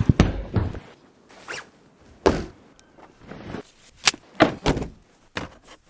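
A string of short, sudden knocks and handling noises, with a car seatbelt being pulled out across the body about four seconds in.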